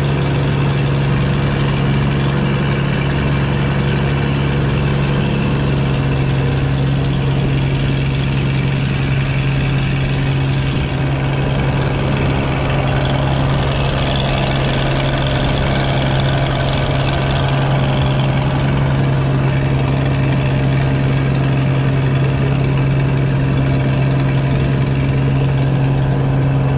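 Boat engine running steadily at one unchanging pitch, loud and close as heard from on board.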